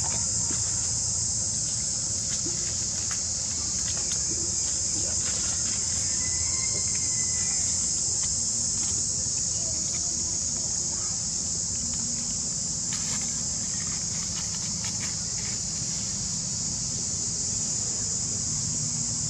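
Steady, high-pitched insect chorus over a low, steady background rumble.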